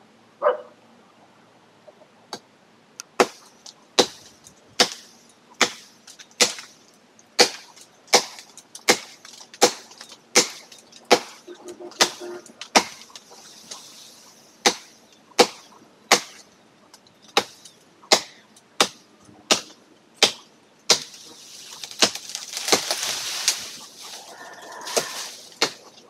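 Machete chopping into a tree branch: a steady run of sharp blows, about one every second. Near the end comes a longer rustle of leaves as the branches shake.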